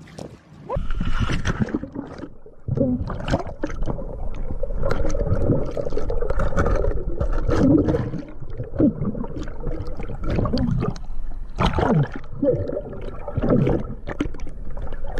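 Water splashing and churning around a small boat, with a few short cries breaking through.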